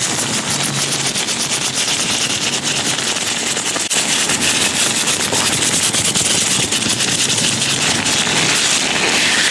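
Latex-gloved hands rubbing and crackling close to a microphone, a dense run of rapid small crackles with one sharper click about four seconds in.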